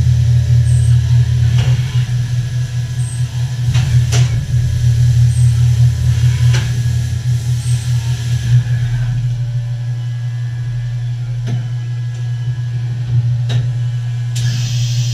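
2008 Fadal VMC4020FX CNC vertical mill running under power: a steady low hum, with sharp clicks every couple of seconds. The lowest part of the hum drops away about nine seconds in.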